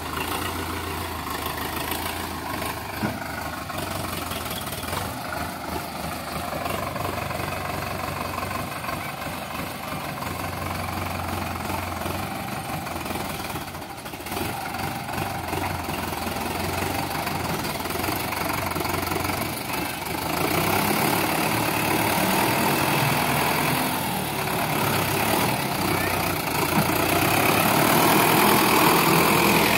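Sonalika DI 750 III tractor's diesel engine running steadily as it hauls a loaded trolley through deep mud. It gets louder in the second half as the tractor comes close.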